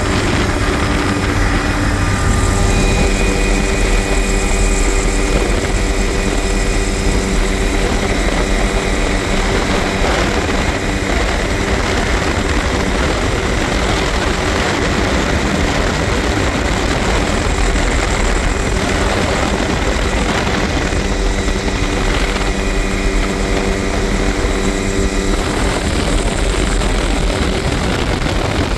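Helicopter in flight with its doors off, recorded from inside the open cabin: loud, steady rotor and turbine noise with rushing air.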